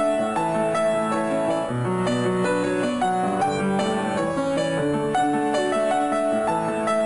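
Piano music: a melody over sustained chords and bass notes.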